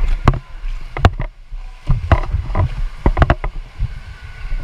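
Water splashing and sloshing right at the camera, with a run of irregular sharp knocks and slaps over a low rumbling wash of moving water.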